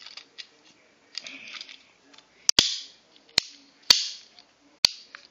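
Orange plastic Super Bang toy cap gun firing plastic ring caps: a quick double crack, then three more single bangs about half a second to a second apart, several leaving a short hiss.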